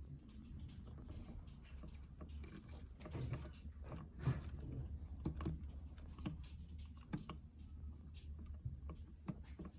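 Scattered small clicks, taps and rubbing of hands handling electrical wires and twisting them together to connect a dimmer switch's hot wire, over a steady low hum.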